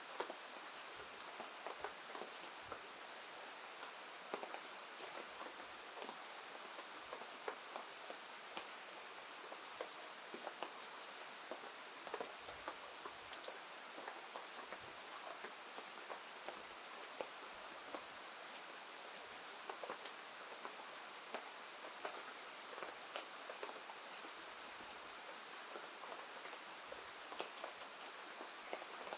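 Rain falling: a steady hiss with many irregular drop ticks scattered through it.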